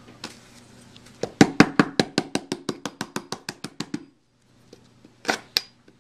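Chef's knife chopping lemongrass stalks on a plastic cutting board: a quick, even run of about six strikes a second, then after a short pause two sharper chops near the end.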